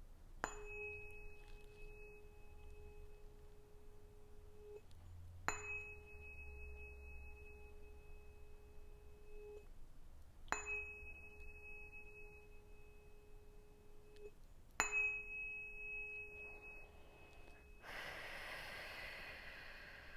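Tuning fork used in Biofield Tuning struck four times, about five seconds apart, each strike a sharp tap followed by a clear steady ringing tone that fades or is stopped after a few seconds. This is the closing-up stage of the sound-healing session. A short rustling noise follows near the end.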